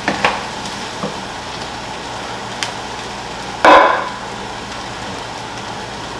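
Fried rice and vegetables sizzling steadily in a nonstick skillet, with a few light knocks of a wooden spatula against the pan in the first second. A loud clatter about three and a half seconds in as a metal wire whisk is set down on the stone countertop.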